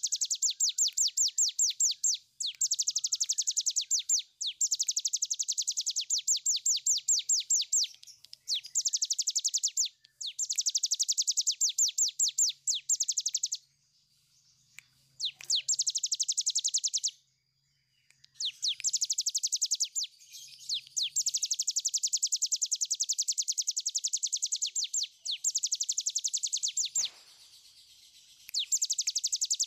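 A cigun, a small prinia, singing its long rapid 'ngebren' song. It gives phrases of very fast, high, down-slurred notes, each run lasting one to three seconds, separated by brief pauses, with a couple of longer breaks in the middle and near the end.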